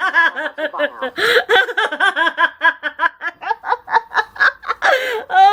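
A person laughing hard in rapid, repeated bursts, about five or six a second, breaking into a high drawn-out squeal near the end.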